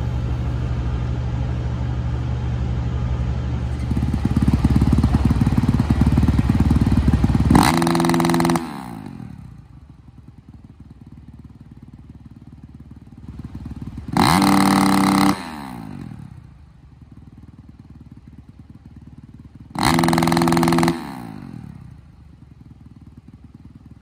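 Dirt bike engine on a sound-check stand: it runs steadily, louder from about four seconds in, then drops to a quiet idle broken by three sharp revs of about a second each, roughly six seconds apart. The revs are the short full-throttle blasts of a sound check, measured against the 112 dB limit.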